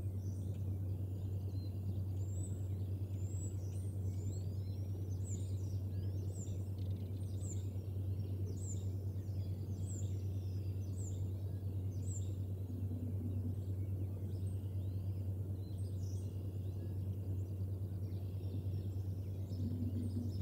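A bird chirping: short, high, falling chirps about once or twice a second for roughly ten seconds, then only now and then, over a steady low hum.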